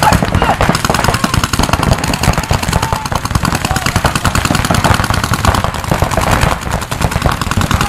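Several paintball markers firing fast, overlapping strings of shots, a dense unbroken rattle of pops.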